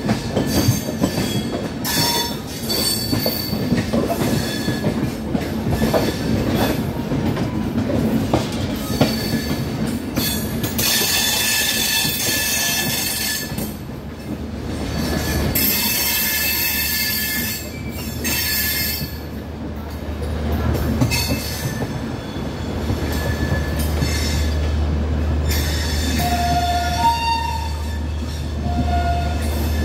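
Running noise of an Indian Railways passenger train with LHB coaches heard from alongside the coach at speed: wheels rumbling and clattering on the rails, with high-pitched wheel squeal in two stretches near the middle. A low steady hum joins about halfway through.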